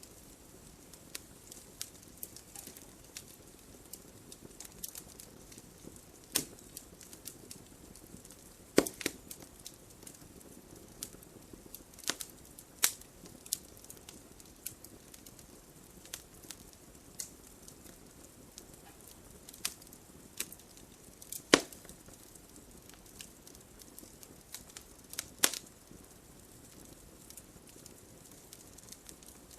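Wood fire crackling: irregular sharp pops and snaps over a low steady hiss, with a few louder cracks scattered through, the loudest about nine, thirteen, twenty-one and twenty-five seconds in.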